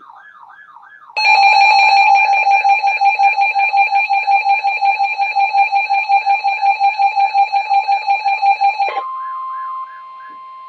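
Electronic emergency alert tones. A warbling tone comes first, then about eight seconds of a loud alarm pulsing about four times a second. Near the end it changes to a steady single tone.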